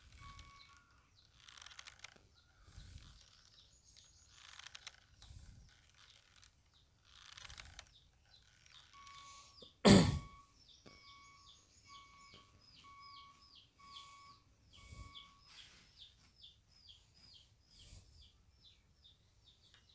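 Short steady electronic beeps come in quick runs of about two a second, and from about halfway on a string of quick high chirps joins them. Soft bursts of hiss come every couple of seconds, and one loud sudden noise about halfway through is the loudest sound.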